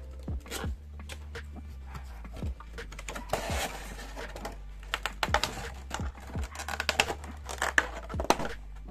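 Clear plastic blister tray crinkling and clicking as it is pulled out of a cardboard figure box and flexed in the hands, with the sharpest clicks near the end.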